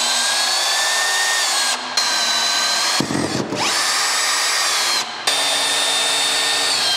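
Power drill driving a long KonstruX full-thread wood screw through a stud-wall frame, its motor whining steadily. The drill eases off briefly three times, about two, three and five seconds in, and after the second pause it spins back up with a rising whine.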